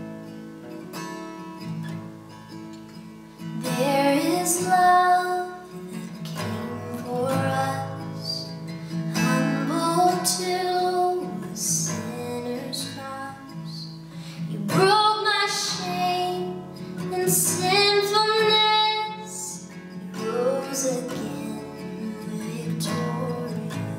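A woman singing to her own strummed acoustic guitar. The guitar plays alone for the first three seconds or so before the voice comes in.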